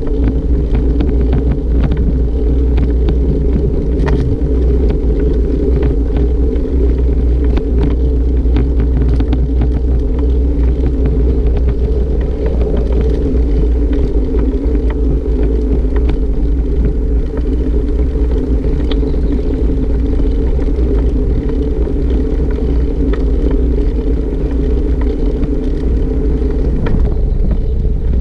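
Bicycle tyres rolling over a brick-paved street, picked up by an action camera mounted on the bike. A loud, steady rumble with frequent small rattles and knocks.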